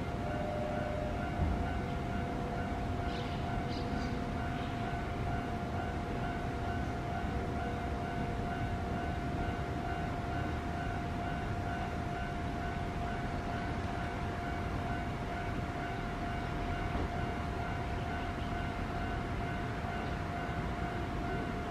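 Steady electronic railway warning tone at one pitch, sounding ahead of an approaching train, over a constant background hum.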